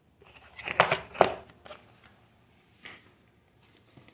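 Objects being handled and set down: two sharp knocks close together about a second in, then two lighter taps.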